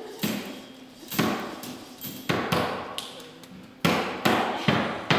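Sharp single knocks struck about once a second, coming faster near the end, each ringing out in a large hall.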